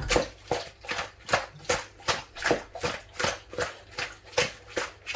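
Seasoned fish being mixed by hand in a bowl with salt and seasoning cubes: a steady run of short wet slaps, about two and a half a second.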